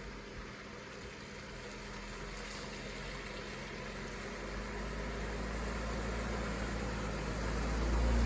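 Jeep Wrangler JK engine running at low speed in four-wheel-drive low as it crawls through a trail mud pit, with a steady rush of tyre and road noise, growing gradually louder.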